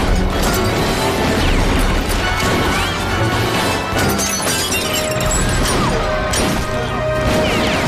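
Film gunfight sound effects: repeated pistol shots and bullets smashing into wood, over an action music score.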